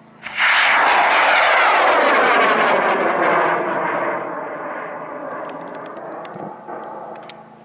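High-power rocket's N-class solid motor firing at liftoff: a loud roar that starts suddenly, holds steady for about three seconds, then fades as the rocket climbs away, with a whooshing sweep that falls in pitch. A few sharp clicks come near the end.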